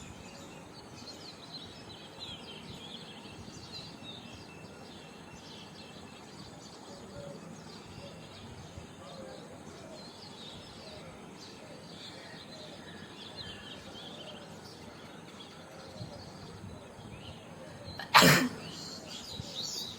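Birds chirping in the background, then near the end a single loud human sneeze, brought on by tickling the nose with a safety pin.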